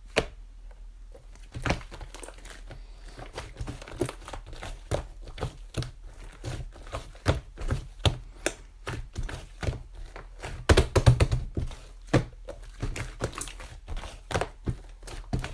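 Irregular taps, knocks and crinkling, as of objects being handled close by, with a burst of louder knocks about eleven seconds in.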